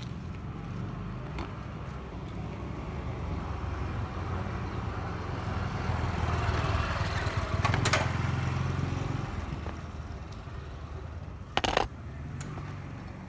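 Steady low background rumble, with a hiss that swells and fades in the middle, and two short sharp knocks, the second about two-thirds of the way in and loudest.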